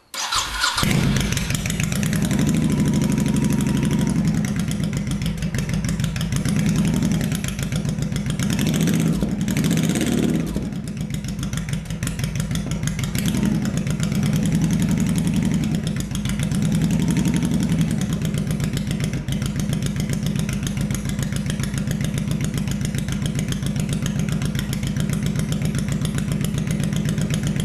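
Honda Shadow Sabre V-twin with Vance & Hines Longshots exhaust firing up at once and settling into a steady idle, with a short rise in revs about ten seconds in and smaller ones after. This is its first run after a carburettor rejet with a DynoJet kit and a carb sync.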